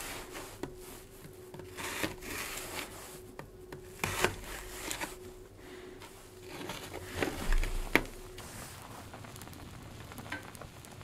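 A kitchen knife slicing carrot on a cutting board: scattered knocks of the blade meeting the board, with soft scraping between cuts.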